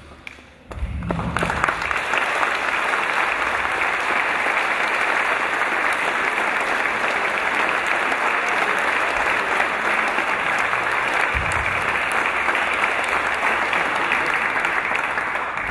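Crowd applauding, breaking out about a second in and holding steady throughout.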